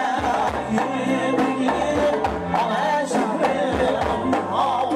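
Uzbek folk song: a wavering sung melody over a steady percussion beat.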